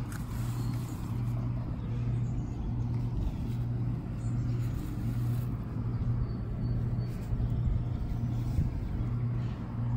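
A steady low motor hum with a rumble underneath it.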